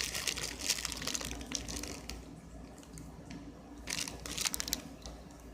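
Plastic packaging crinkling as a squishy toy is squeezed inside it, in bursts during the first two seconds and again about four seconds in.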